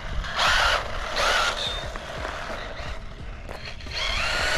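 4000 kV brushless motor of a small 1/16-scale RC truck whining under throttle, in two short bursts about half a second and a second in, then a longer, louder rising whine near the end as the truck accelerates at full speed.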